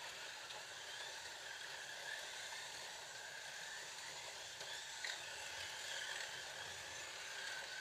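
Several Scalextric slot cars lapping a plastic track: a steady, faint whir of their small electric motors and tyres, with a few light ticks.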